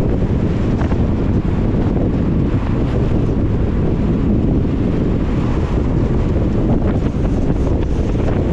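Car driving on a wet road in the rain: a steady low rumble of tyre, road and wind noise.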